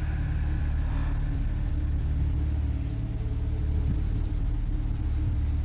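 A steady low rumbling hum on a few fixed low pitches that stays even throughout.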